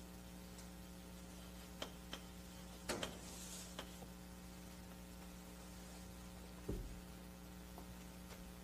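Steady electrical mains hum with a quiet room underneath. A few faint clicks and a brief rustle come about three seconds in, and a soft low thump about two-thirds of the way through.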